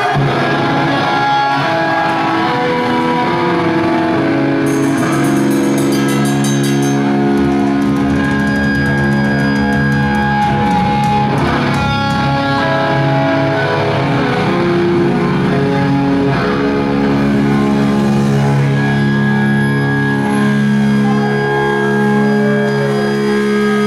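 Live heavy metal band playing loud, with distorted electric guitars holding long sustained notes over the bass.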